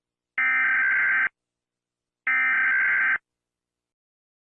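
Two bursts of Emergency Alert System SAME digital data tones, each just under a second long and about a second apart, the second and third of a set of three.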